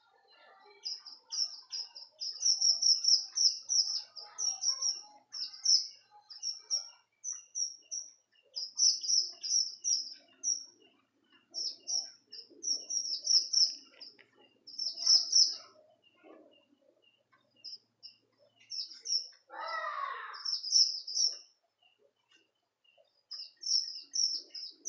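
Red avadavat (strawberry finch) singing: phrases of high, quick twittering notes with short pauses between them. There is one brief lower, rougher sound about twenty seconds in.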